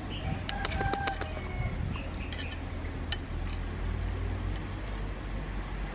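Metal spoon clinking against a ceramic soup bowl: a quick run of ringing clinks about half a second in, then a few fainter taps, over a steady low rumble.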